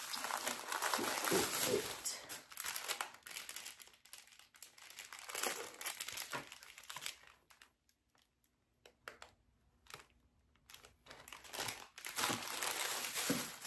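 Clear plastic packaging of a craft ornament kit crinkling as it is handled and turned over, in several spells with a few seconds' pause past the middle.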